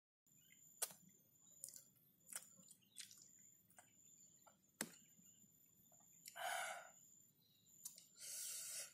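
Faint mouth sounds of a man eating durian flesh: about half a dozen soft clicks and lip smacks, then two short hissing sounds in the second half.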